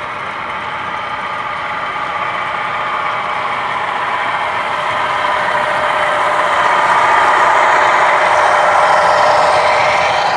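Sound-equipped HO-scale CSX diesel locomotives (a ScaleTrains SD40-3 leading two Intermountain GE Evolution units) running under load with a double-stack train, their speaker engine sound mixed with the rumble of wheels on the track. It grows louder as the train comes past, peaking about seven seconds in.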